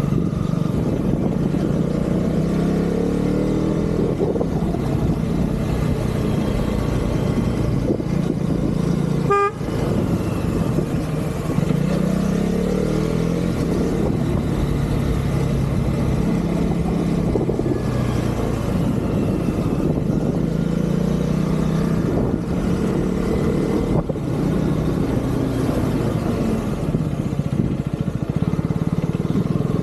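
Husqvarna Vitpilen motorcycle engine running while riding. Its pitch rises and falls again and again as the throttle is opened and closed through the gears.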